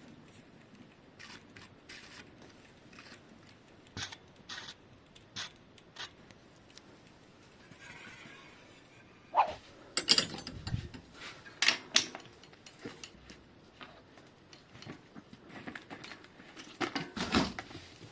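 Scattered clicks, taps and knocks, irregular and sparse, with louder clattering clusters about ten seconds in and near the end.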